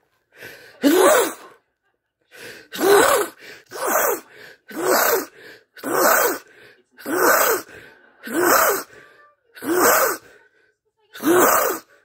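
A man sneezing over and over, a self-induced sneezing fit: about nine loud sneezes, roughly one every second or so, each with a quick gasping in-breath just before it.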